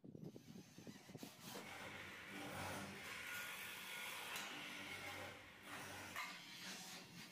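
Cordless drill running for about five seconds as it drives a screw into the light-gauge metal ceiling frame. It builds about a second in and drops off about six seconds in.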